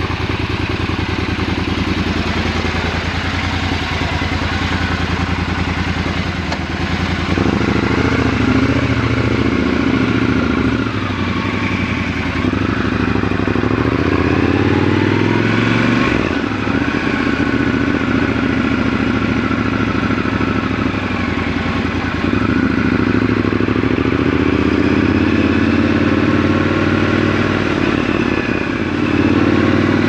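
Triumph Scrambler 1200 XC's 1200 cc parallel-twin engine idling steadily for about seven seconds, then pulling away and riding at low speed through the gears, its pitch rising and dropping with each shift.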